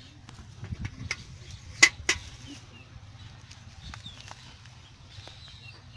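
Metal pail being emptied of fish and set down on grass: a few soft knocks, then two sharp knocks about two seconds in. Faint rustling follows as the fish are handled on the grass.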